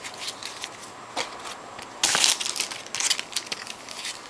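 Light ticks and rustles of cards being handled, then about halfway in a sudden, loud crinkling as a trading-card pack's foil wrapper is torn open and crumpled.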